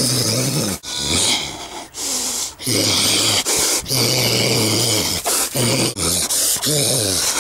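A man growling and grunting harshly as he attacks, in about six low, rough sounds, each up to a second long, with short breaks between them.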